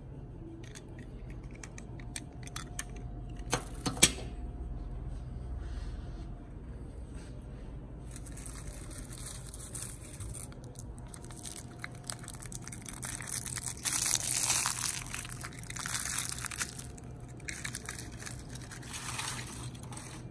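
Rustling and crinkling as a hand pushes through the stiff plastic needles and decorations of a small artificial Christmas tree, with a couple of sharp clicks about four seconds in. The rustling grows busier from about eight seconds on, loudest around the middle of that stretch.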